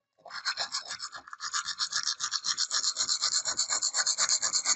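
Sandpaper rubbed by hand over a rusty steel axe head in quick back-and-forth strokes, several a second, scouring off the rust. The scraping gets louder about a second and a half in.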